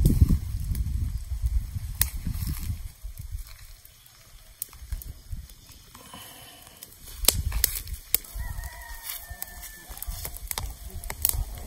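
A rooster crows in the background during the second half, a faint call with a held, slightly falling tone. Before it, close rustling and handling noise rumbles near the microphone, and scattered sharp clicks run throughout.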